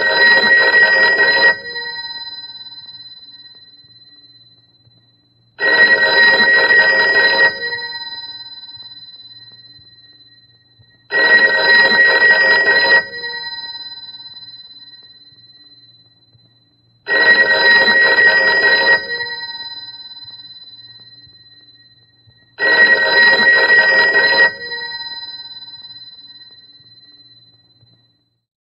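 Old-style electromechanical telephone bell ringing: five rings of about two seconds each, roughly every five and a half seconds, each fading away slowly after the clapper stops.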